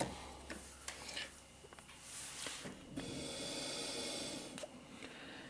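A person blowing hard through the small pressure-switch hose of an AEG 50750 dishwasher: a steady rush of breath for about two seconds, starting about three seconds in, after a few small handling clicks. The air passes freely, so the hose is not blocked.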